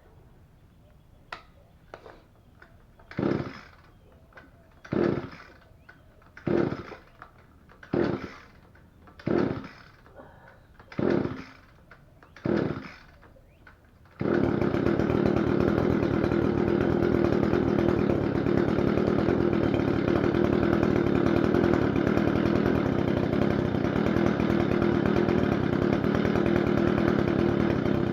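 Echo GT-225 string trimmer's small two-stroke engine being pull-started: about seven pulls of the recoil starter cord, then it catches about halfway through and runs steadily. The engine is running on a freshly replaced cylinder and piston that restored its lost compression.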